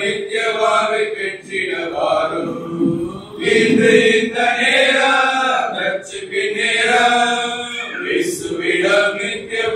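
A group of men singing a Tamil Christian song together, one voice led on a microphone, in phrases with short breaths between them.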